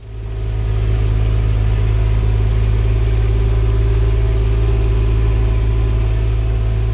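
Tractor engine running steadily at a constant speed, loud and low, fading in over the first second.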